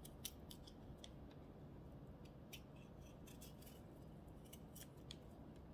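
Near silence with about a dozen faint, sharp little clicks scattered irregularly, the clearest a moment after the start.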